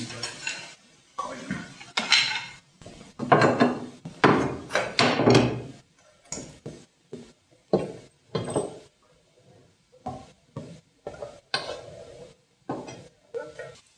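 Irregular knocks, scrapes and clatter from handling a spirit level and tools against a white plastic 55-gallon drum sitting on a small steel wheeled frame, while the drum is checked for level. The sounds are louder and more frequent in the first half.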